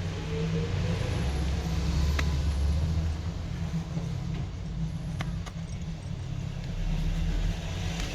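A few faint, sharp plastic clicks as the middle frame of a Samsung Galaxy J7 2017 is pried loose from the phone body, over a steady low background rumble.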